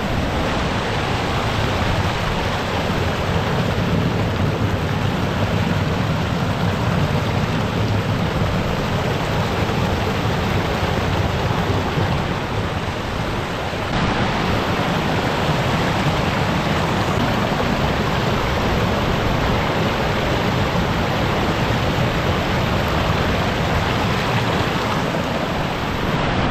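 Steady, loud rush of seawater, as surf washes over a coastal rock shelf and spills off it in small falls.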